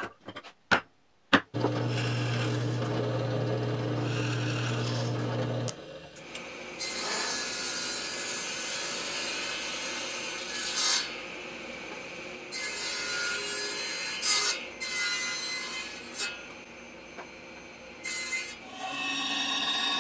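Power saws cutting plywood, in several edited stretches. A few sharp knocks come first, then a saw motor runs with a steady hum for about four seconds. After that, uneven cutting noise comes and goes, and near the end a bandsaw cuts through the plywood.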